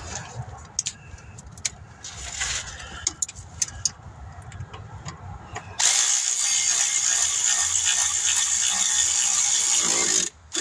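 A ratchet turning a bolt. Light scattered clicks come first, then about six seconds in a loud, steady whirring runs for some four seconds and stops suddenly.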